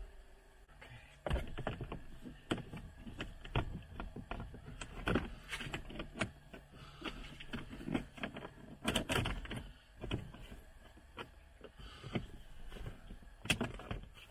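Hard plastic car interior trim panels being handled and pressed into place in a footwell: irregular clicks, knocks and rattles of plastic.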